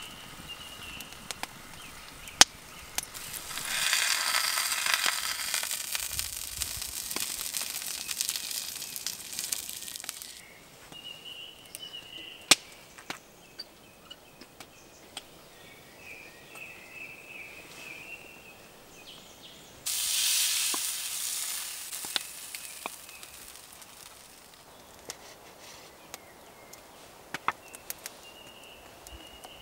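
Wood fire crackling, with scattered sharp pops and two long spells of hissing that start and stop abruptly. Faint high chirps come in between.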